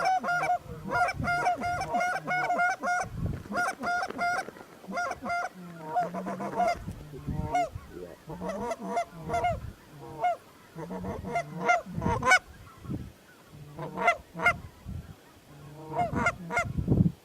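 Goose honks and clucks in quick, even succession for the first few seconds, then sparser, more varied calls, with the loudest about twelve seconds in and near the end.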